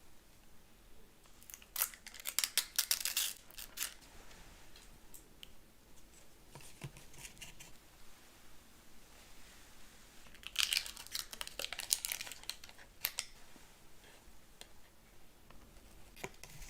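Close-miked crunching of crispy food being bitten and chewed, in two bursts of crackling several seconds apart with quieter chewing clicks between.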